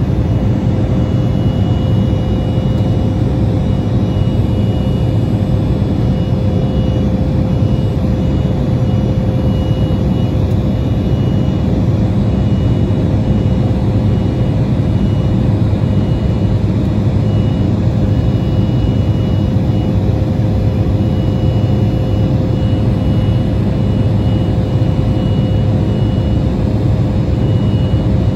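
Cabin noise of an Embraer E175 in its climb after takeoff: the steady, loud rumble of its GE CF34 turbofan engines and rushing air, with a steady hum at one pitch and a faint high tone that flickers on and off.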